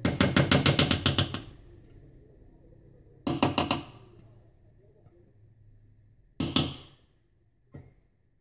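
Silicone spatula scraping and tapping thick custard out of a stainless steel saucepan. There is a rapid run of strokes at the start, a shorter run about three seconds in and a single scrape near the end.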